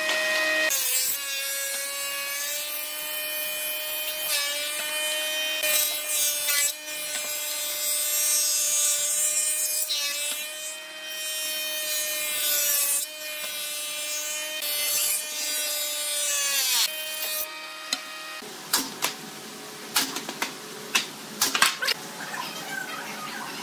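Industrial thickness planer cutting a board: a loud, pitched cutterhead whine that drops in pitch as the board is taken in about a second in, holds with small dips while it cuts, and rises again as the board leaves, about three-quarters of the way through. Then a few sharp wooden knocks and taps.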